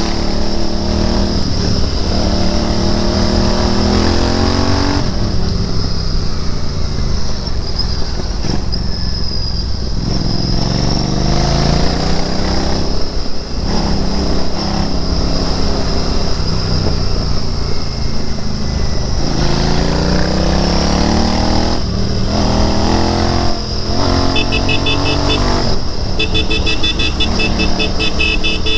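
Royal Enfield Interceptor 650's parallel-twin engine pulling through the gears, its pitch rising with each acceleration and dropping at each shift or roll-off, several times over. Near the end a high, pulsing horn-like beep sounds twice.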